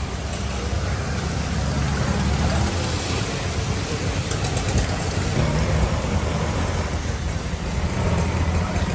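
Busy street traffic: motor vehicle engines running close by, a steady low hum with general road noise.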